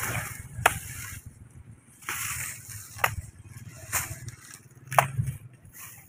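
A few sharp chopping strikes, a second or two apart, of a blade cutting into a banana plant, with rustling of leaves between them.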